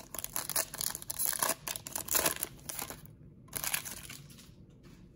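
Plastic wrapper of a trading-card pack being torn open and crinkled in the hands, with irregular crackling for about three seconds, then another short crinkle about a second later.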